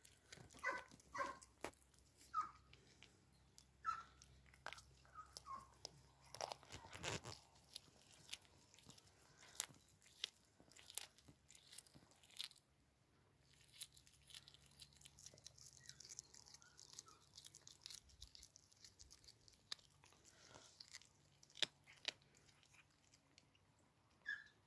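A cat chewing and crunching a small whole raw fish: faint, irregular crunches and clicks from its teeth.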